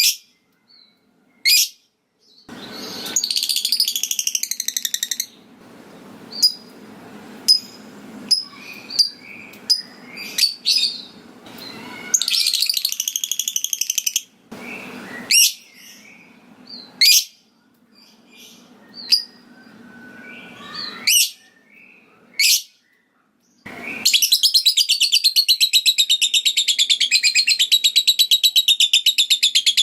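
Lovebird calling: sharp high chirps and quick clicking 'ngetik' notes with a few short chattering bursts, then in the last six seconds a long, rapid rattling chatter, the 'ngekek' trill.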